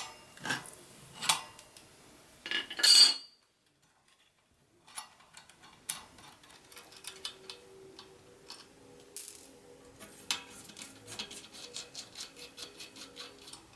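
Steel bicycle cassette parts and tools clanking and clinking as the cassette is taken off the rear hub. A few sharp metallic clanks come first, then after a brief silence a run of lighter clicks with a faint ringing.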